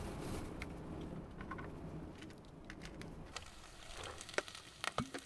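Faint clicks and light knocks of cooking-utensil and container handling at a camp kitchen, over a low rumble that fades after about two seconds.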